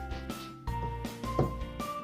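Background music, with sustained notes over a low bass, moving to a new note about every half second.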